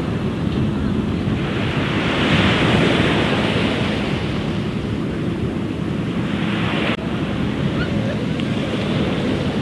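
Small waves breaking and washing up a sand beach, mixed with wind buffeting the microphone; the surf swells a little louder about two seconds in.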